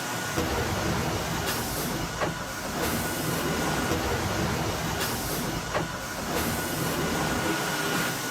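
Sawmill machinery running with a steady industrial din and a thin high steady whine, broken by a few faint clunks.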